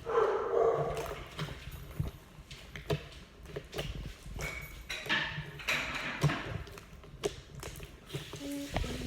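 Slime being squished and stretched by hand, with many small wet clicks and pops. A short, louder pitched sound opens it.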